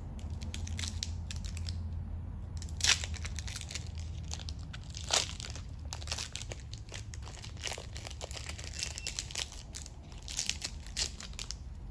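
Foil Pokémon TCG booster pack wrapper crinkling in the hands as it is torn open and handled, in irregular crackles. The two loudest come about 3 and 5 seconds in, and a run of them near the end.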